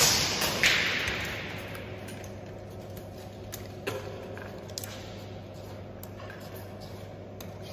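A single shot from a bullpup PCP air rifle: a sharp crack, a second sharp knock about half a second later, then a hissing tail that fades over about a second. A few faint clicks follow over a steady low hum.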